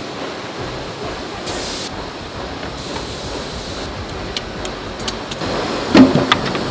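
Steady hiss and hum of forging-shop machinery, with a few light metal clinks of tongs on hot steel at the press die partway through and one loud metal clank near the end.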